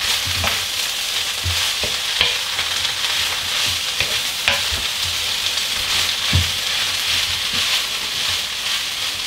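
Rice, egg and lettuce sizzling steadily in a hot electric wok while a wooden spatula stirs and scrapes through it, knocking against the pan now and then. The lettuce is being wilted down on high heat.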